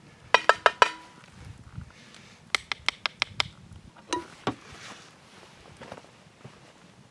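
Quick runs of sharp knocks and clinks: four or five rapid strokes about half a second in, the first ones leaving a short metallic ring, then about five more around the middle and two single knocks a little later.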